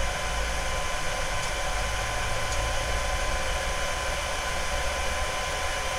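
Steady whirring noise with a faint steady tone from a Genmitsu Z5-1 galvo fiber laser running while it traces its red-light framing outline.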